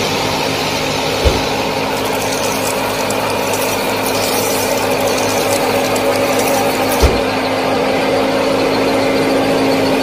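Small motor and gears of a miniature model farm machine running steadily, with a fast rattling of the mechanism from about two to seven seconds in and two short low thumps.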